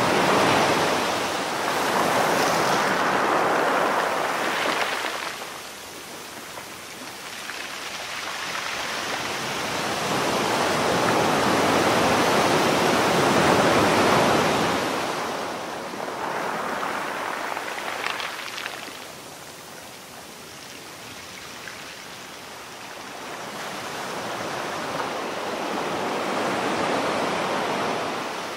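Ocean surf washing onto a sandy beach: a steady rushing that swells and fades in slow surges, loudest at the start, again around the middle, and once more near the end.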